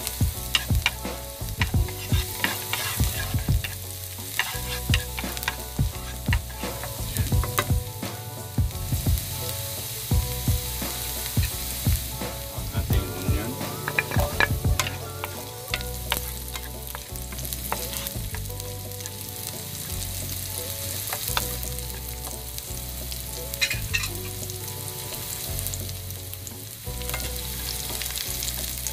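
Minced garlic sizzling in hot olive oil in a pan, stirred with a wooden spatula that scrapes and taps against the pan, most often in the first half.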